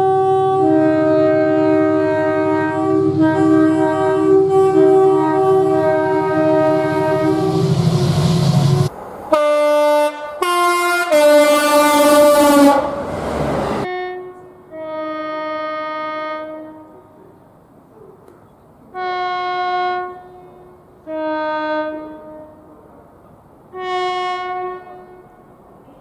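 Multi-chime train air horns sounding in a run of clips. First comes a long series of repeated chord blasts over the growing rumble of a train. Then short blasts fall in pitch under a loud rush of train noise. Last come four separate, quieter horn blasts, the first one the longest.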